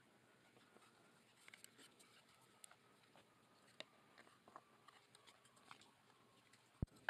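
Near silence with faint scattered taps and light clicks of painted wooden cabinet doors being handled, and a single low thump near the end.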